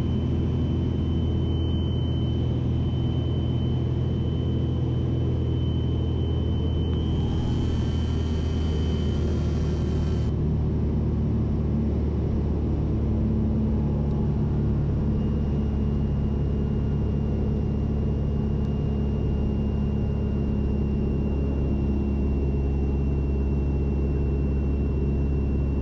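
Single-engine Mooney's piston engine and propeller droning steadily inside the cockpit, holding a constant power setting in the traffic pattern. A brief hiss lies over it for about three seconds, some seven seconds in.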